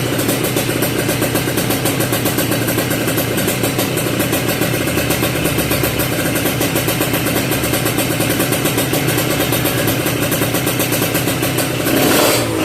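Kawasaki Ninja RR 150 two-stroke single-cylinder engine, fitted with a WRX GP racing exhaust and a PJ38 carburettor, running steadily with a fast, even beat. Near the end it rises briefly as the throttle opens.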